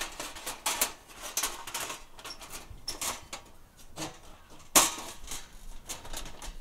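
Metal clicks, taps and scrapes of a wire oven grate being fitted into an older steel Coleman folding camp oven, with one sharp clack a little before five seconds in.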